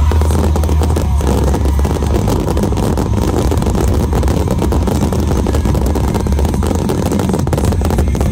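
Dense barrage of aerial firework shells bursting in rapid succession: many bangs running together into a continuous loud din, with crackling.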